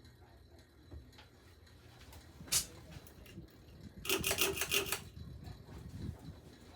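Low steady hum of a running Hampton Bay Hugger ceiling fan, with a single sharp click about halfway through and then a quick rattle of about nine clicks lasting about a second.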